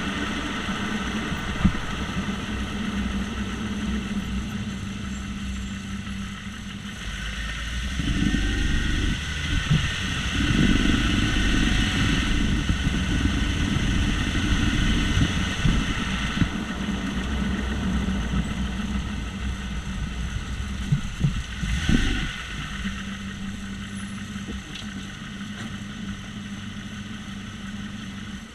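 Jeep Grand Cherokee being driven: steady running and tyre noise, louder for a stretch in the middle, with a grinding that the owner traces to the front right wheel.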